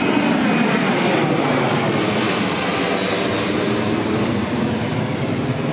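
Embraer KC-390's twin IAE V2500 turbofan engines passing low overhead: a loud, steady jet roar that eases slightly as the aircraft moves away.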